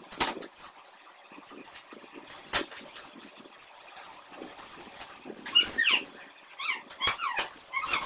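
Shiny metallic gift wrap being torn off a box and crinkled by hand: a few sharp crackles, then from about five seconds in a busy run of squeaky, crinkling rustles as the paper comes away.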